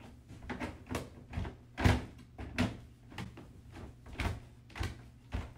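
Hard plastic pen panels knocking and clicking together as a middle wall is fitted onto the interlocking pegs: about ten sharp, irregular knocks, the loudest about two seconds in.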